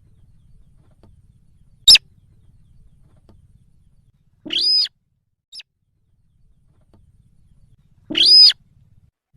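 Recorded calls of the sintar bird played as a hunting lure: a brief sharp call about two seconds in, then two longer, harsher calls a few seconds apart, with a faint short note between them.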